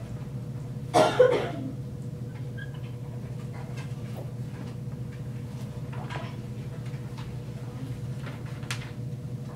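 Classroom room tone: a steady low hum with faint scattered clicks and rustles, and one short, loud noise about a second in.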